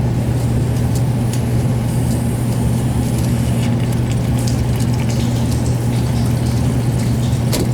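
Steady low machinery hum from the heating equipment, unchanging throughout, with a few faint light clicks as a tubing cutter is worked around a copper pipe.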